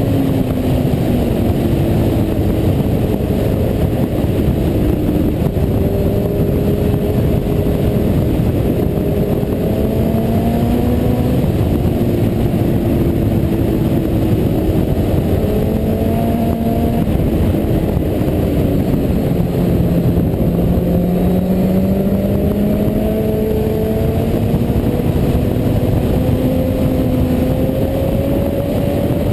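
Sport motorcycle engine at track speed under a dense rush of wind and road noise, its pitch climbing and falling several times with throttle and gear changes, and climbing steadily through the last third.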